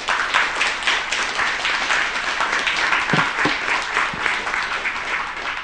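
Audience applause: many people clapping at once in a dense, even patter.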